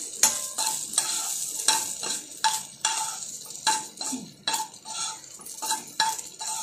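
Spatula scraping and knocking against a pan, about two strokes a second, as small rice-flour dumpling balls are tossed in a tempering of mustard seeds, green chillies and coconut, with a light sizzle underneath.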